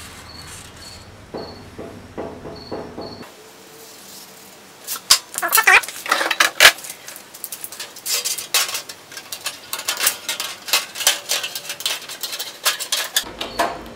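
Hand tin snips cutting thin 26-gauge sheet metal: a run of sharp metallic crunches and clicks, one per snip stroke, starting about five seconds in. Before that, the faint scratching of a marker tracing a template onto the metal.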